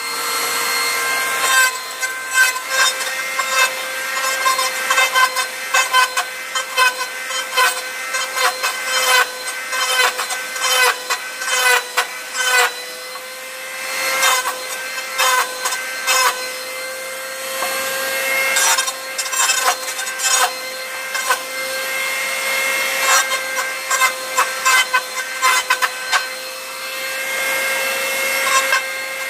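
Jackfruit wood being worked with a power tool: a steady motor whine under rough scraping and rasping, with many sharp knocks and clacks of wood.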